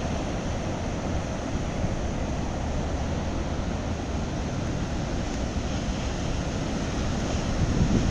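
Ocean surf on a big-wave day, a steady rushing noise of breaking waves with wind buffeting the microphone; it swells louder near the end as a wave breaks.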